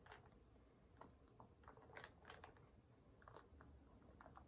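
Near silence, broken by faint scattered clicks and taps.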